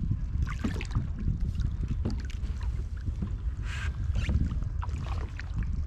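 Wind rumbling on the microphone with water lapping against a kayak's hull, with scattered small knocks and a brief splash-like hiss near the middle.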